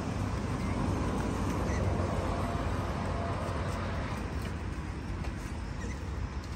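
Steady low rumbling noise, with a few faint bird chirps over it.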